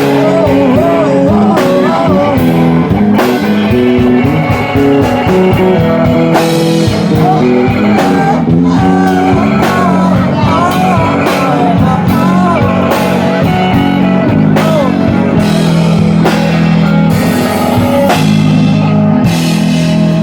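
Live blues-rock band playing, with electric guitar, bass and drums.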